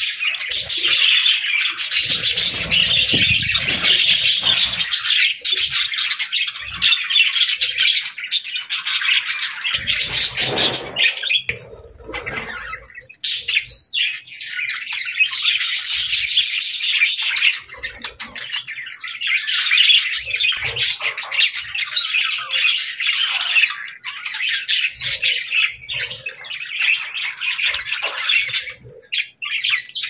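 A flock of budgerigars chattering and chirping: a dense, continuous run of quick high-pitched warbles and squawks that thins out briefly a few times.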